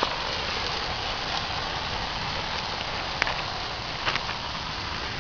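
Bonfire with a mattress burning on it, giving a steady rushing hiss with a few sharp crackles and pops about three seconds in and twice around four seconds.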